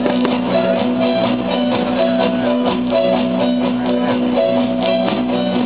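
Music with a steady beat and a long held low note.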